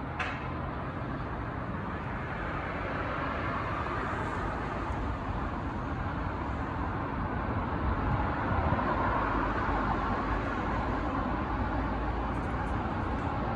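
Steady road traffic noise, with a folded damp towel being rubbed hard over a van's side window glass to scrub off hard-water spots. A short click comes right at the start.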